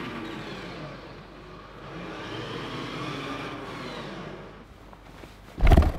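Electric wheel motors of a self-following smart suitcase whining as it rolls along behind a walking person, the pitch rising and falling as it speeds up and slows. A loud thump comes near the end.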